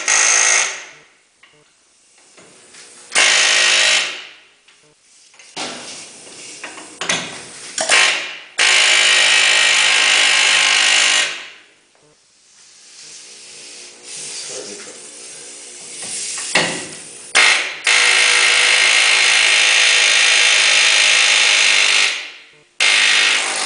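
Pneumatic air hammer with a chisel bit hammering on the steel outer casing of a leaf-spring shackle hanger bushing, peeling its edge up to work it loose. It runs in loud bursts of one to four seconds, with short pauses between.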